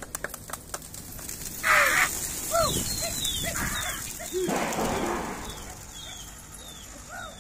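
A large flock of domestic pigeons taking off from a rooftop, with a loud rush of wingbeats about two seconds in and another near the middle. A few hand claps sound at the start, driving the flock up, and short bird chirps come throughout.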